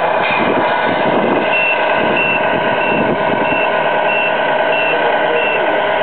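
Remote-control Scania truck model's sound unit playing a steady simulated truck engine, with a reversing alarm beeping seven times, about every two-thirds of a second, starting about a second and a half in: the model is backing up.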